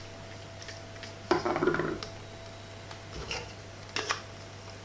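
Thick spice paste being tipped out of a glass chopper bowl onto fish fillets in a roasting tin: a brief scraping sound about a second in, then a few light clicks of the bowl near the end.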